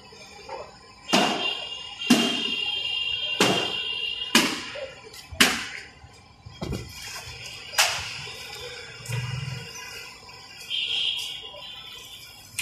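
Busy city street traffic with a run of short, sharp vehicle horn honks, about one a second at first, and another horn tone near the end.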